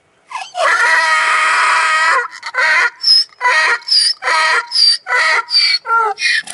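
Donkey braying: one long drawn-out call, then a quick run of alternating hee-haw notes, the high squeaky 'hee' and the lower 'haw' trading about every half second.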